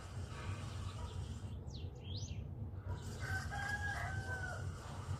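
A rooster crows once: a single held call of about a second and a half, starting a little past halfway and dipping at its end. A steady low rumble runs underneath, and a few short high chirps come shortly before the crow.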